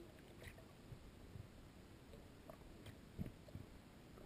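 Near silence: faint underwater ambience picked up by the camera, with scattered small clicks and a few soft low thumps, the most noticeable about three seconds in.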